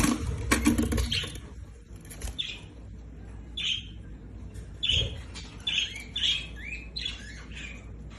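Lovebird giving a run of short, high chirps, about one every half second to second. In the first second there are louder clicks and knocks.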